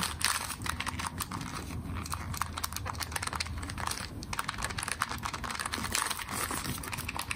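Small plastic keys of the PinePhone Pro's keyboard case clicking rapidly and irregularly as they are mashed with both hands.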